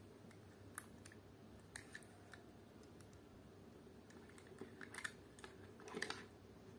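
Faint, scattered clicks and taps of fingers handling and turning a small diecast toy car, a few single ticks and then a short cluster near the end, over a faint steady low hum.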